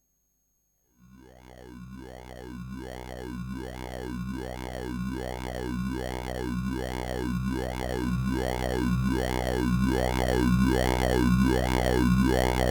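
AE Modular synthesizer: a low sustained synth tone fading in about a second in, its filter sweeping up and down in a steady wah-like cycle a little faster than once a second, growing louder throughout.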